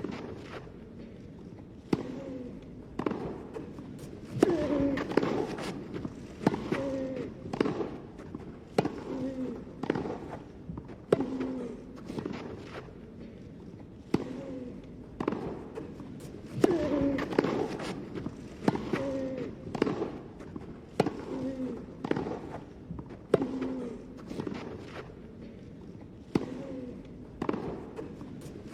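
Tennis rally: racket strikes on the ball about once a second, most of them with a short grunt from the player hitting.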